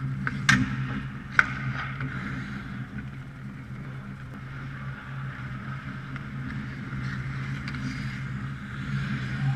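Ice hockey rink sound: skates scraping on the ice over a steady low hum, with two sharp cracks of stick and puck, about half a second and a second and a half in.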